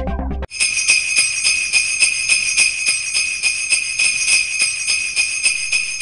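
Electronic music ends half a second in and sleigh bells take over, shaken in a steady rhythm of about four shakes a second.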